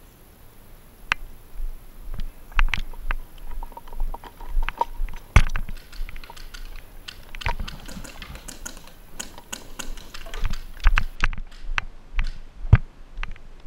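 Irregular sharp pops and clicks of paintball markers firing around the field, some close and several farther off. The loudest pop comes about five seconds in.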